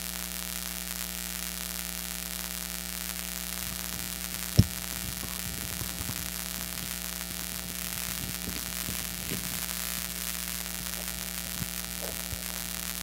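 Steady electrical mains hum with hiss from a microphone and sound system, with one sharp knock about four and a half seconds in.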